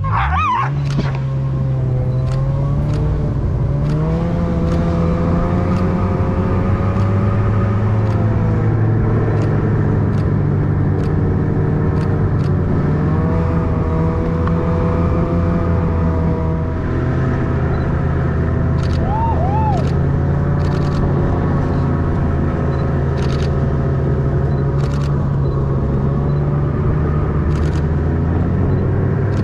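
Snowmobile engine running steadily, its pitch drifting slowly up and down, with faint clicks and knocks from the sled going over the trail.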